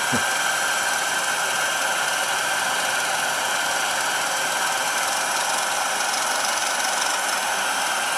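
Handheld hair dryer running steadily: an even rush of blown air with a thin, constant whine from its motor.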